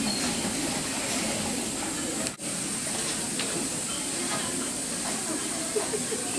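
Steady, hissing ambience of a garment-factory sewing room, many sewing machines running at once, with faint, indistinct voices. The sound drops out briefly a little over two seconds in.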